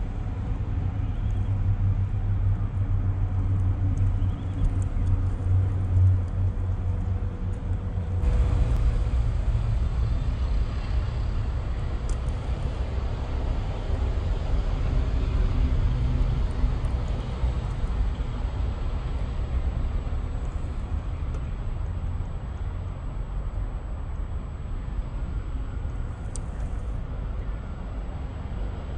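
MN82 scale RC pickup truck driving over dry pine needles, a steady low noise. The sound shifts at a cut about eight seconds in.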